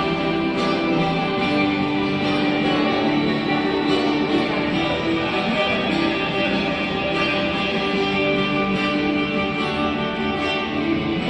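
Ukulele solo played with a pick through a small portable amplifier over a backing track, with steady continuous music and no pauses.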